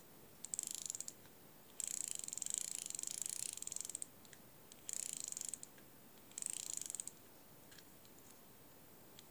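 Edgar Sealey Flocast fixed-spool reel (a J.W. Young's Ambidex variant with worm-drive gearing) being wound by hand: its mechanism gives a fast, fine ticking whirr in four bursts, the longest about two seconds.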